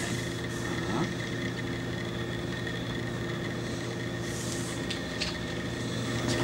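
Steady electrical hum made of several fixed tones, with a few faint clicks and a brief soft hiss about four seconds in.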